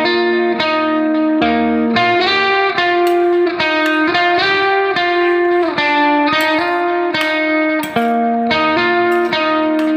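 Background music: guitar playing a steady run of sustained, changing notes.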